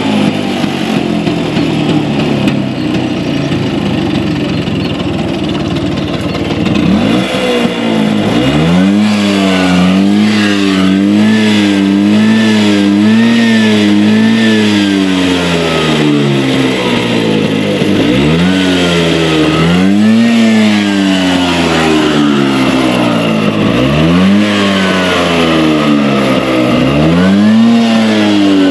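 Two-stroke engine of a Bajaj Vespa scooter running at a rough idle, then revved hard and repeatedly while standing still from about seven seconds in: the pitch climbs, holds with a wobble, drops back and climbs again several times.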